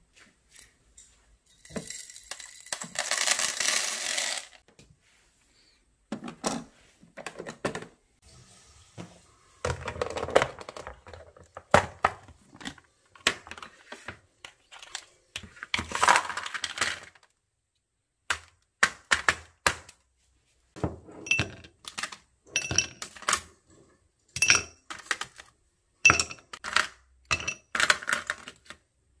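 Dishes and utensils clattering: a string of knocks and clicks with a hissing noise a few seconds in, and ringing clinks of hard ware striking near the end.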